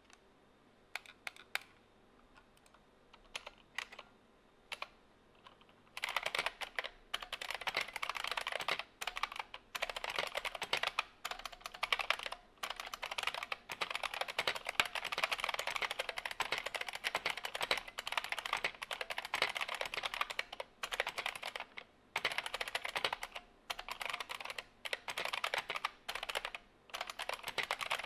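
Typing on an IBM M122 BattleCruiser keyboard with buckling-spring switches and PBT dye-sub keycaps. A few scattered clicks come first. About six seconds in, fast continuous typing begins: a dense run of sharp clicks with short pauses.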